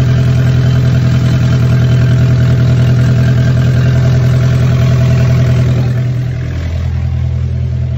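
Sailboat's inboard diesel engine running steadily, heard loud and close from inside the hull. About six and a half seconds in, its note drops lower and a little quieter.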